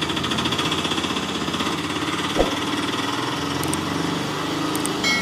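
An engine running steadily with a fast rattling beat, and one sharp click about two and a half seconds in.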